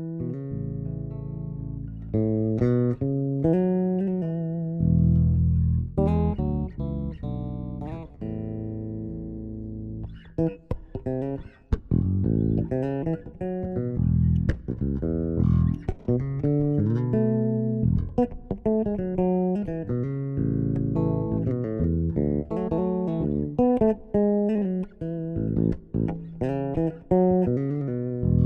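Bass guitar playing a melodic arrangement, with plucked low notes, melody lines and chords.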